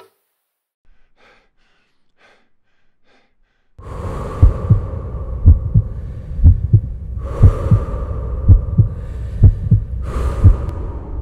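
Heartbeat sound effect, a low double thud about once a second, with slow heavy breathing in and out about every three seconds. It starts about four seconds in, after near silence with a few faint ticks.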